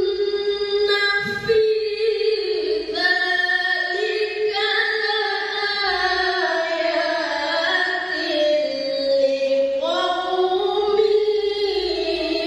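A woman's melodic Qur'an recitation (tilawah), long ornamented notes held and gliding up and down, sung through a microphone.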